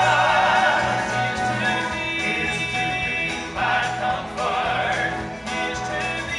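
A male vocal quartet singing in harmony, holding long, wavering notes.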